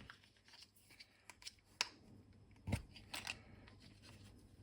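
Faint handling noise of small tools and parts: a few scattered light clicks and taps, with one duller knock a little under three seconds in.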